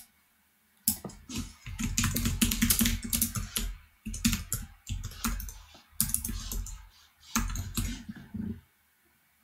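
Typing on a computer keyboard: several quick runs of keystrokes with short pauses between them, starting about a second in.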